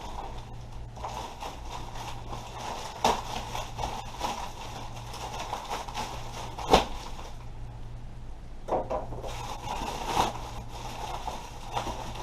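Handling noises from unpacking: scattered knocks, clicks and rustles as packaging and gear are moved about, the sharpest knock about seven seconds in, over a steady low hum.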